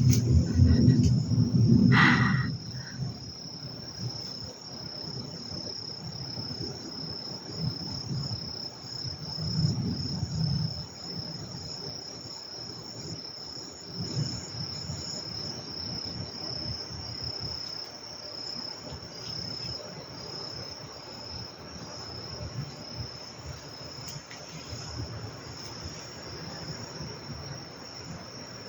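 Crickets chirping in a steady, high-pitched, finely pulsing trill. A louder low noise and a short burst fill the first two seconds, then a faint low rumble continues underneath.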